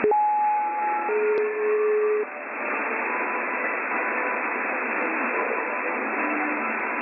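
Shortwave radio reception on a software-defined receiver between stations. A click is followed by two steady whistle tones, a higher one and then a lower one, about a second each. Even static hiss follows in the narrow band of the receiver's audio.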